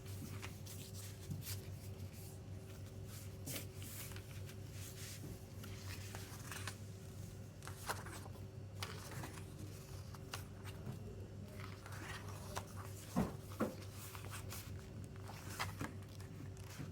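Hands handling a CD album's packaging and paper booklet: irregular rustles and small taps, with two louder knocks just past 13 seconds in. A steady low electrical hum runs underneath.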